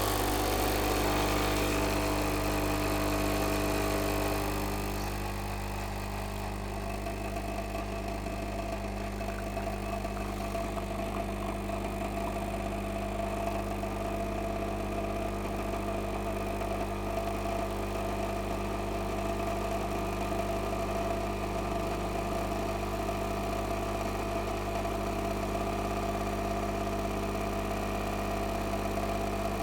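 DeLonghi espresso machine's pump running with a steady low buzz. It cuts in abruptly, and a higher tone in it drops away about four seconds in.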